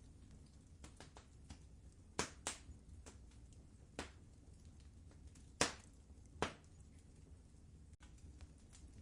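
Wood fire crackling in a fireplace: a handful of sharp pops and snaps, the loudest about two, four, five and a half and six and a half seconds in, with fainter ticks between them over a low steady hiss.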